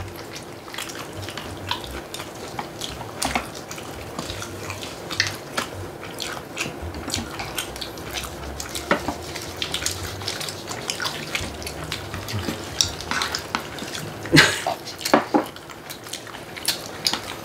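Eating sounds at the table: chewing and wet mouth clicks, with chopsticks and dishes tapping now and then and a louder clatter near the end.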